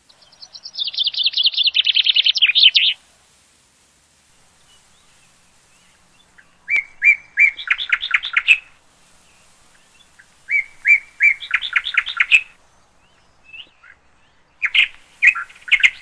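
A fantail singing: a fast trill of high notes that falls in pitch over about three seconds, then three shorter phrases about four seconds apart, each a couple of clear notes followed by a quick run.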